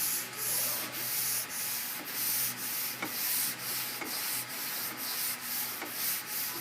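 Sandpaper on a Curvecaster long sanding board being pushed back and forth over a primed car body panel by hand. It makes even, rhythmic scratchy strokes, about two a second, as the panel is blocked down to reveal a low spot.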